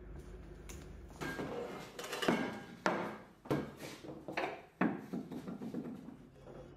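Clay and glazed ceramic flower pots being set down and shifted on a wooden tabletop: a run of knocks and scrapes, the loudest clunks coming between about two and five seconds in.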